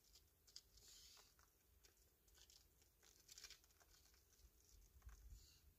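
Near silence, with faint brief scuffs and rustles scattered throughout, a little louder about a second in and again after three seconds.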